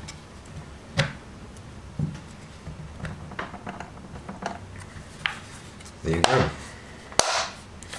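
Screwdriver and hands working the plastic shell of a Tippmann TiPX paintball pistol as it is screwed back together: soft taps and small clicks, with sharper clicks about a second in, at two seconds, and just after seven seconds. A brief murmur of voice comes about six seconds in.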